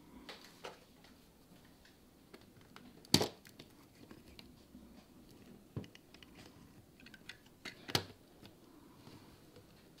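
Small clicks and light knocks of 3D-printed plastic model parts being handled and moved on a tabletop, with two sharper knocks, one about three seconds in and one near eight seconds.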